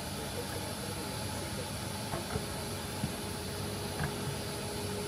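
Steady background hiss with a few light clicks and taps as intake parts are handled and set in place; a faint steady hum comes in about halfway through.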